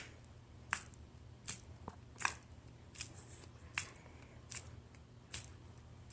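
Palms peeling off skin coated in honey gone tacky, a short crackly sticky snap at each pull, about every three-quarters of a second.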